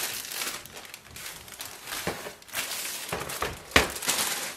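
Clear plastic packaging bag crinkling and rustling as it is slid off a portable printer and handled, with a sharper crackle near the end.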